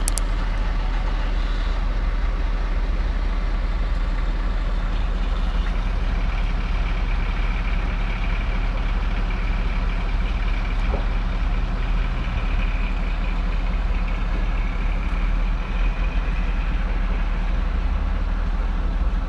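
Heavy truck engine running steadily at idle, a continuous low rumble, with a faint high whine through the middle.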